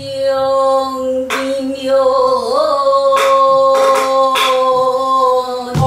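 A woman singing a Namdo folk song in Korean traditional vocal style, holding one long note with a wavering bend about two and a half seconds in. A buk barrel drum accompanies it with several sharp strokes.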